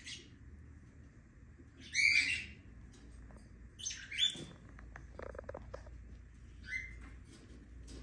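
A young lovebird chirping in short, high calls, about five of them, the loudest about two seconds in. A quick run of faint clicks comes about five seconds in.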